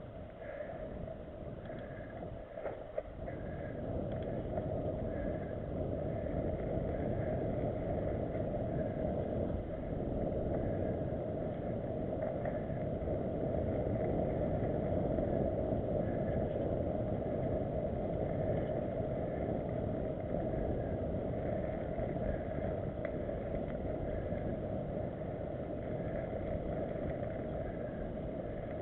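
Mountain bike rolling fast over a dirt forest trail, heard through a bike- or helmet-mounted camera: a steady, low rumble of tyres and rushing air on the microphone.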